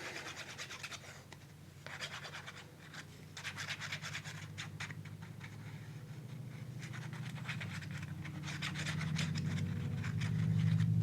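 Scratchy rubbing of paper in quick repeated strokes as a freshly glued paper piece is pressed and smoothed down by hand. Under it a low steady hum grows louder toward the end.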